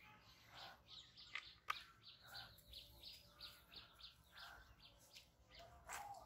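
Faint, repeated bird chirps, short high calls a few tenths of a second apart, with a sharp click about a second and a half in and a louder click near the end.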